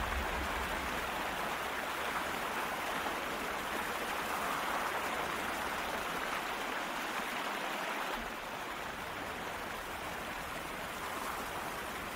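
Steady rushing noise, even and without distinct events, easing slightly about eight seconds in.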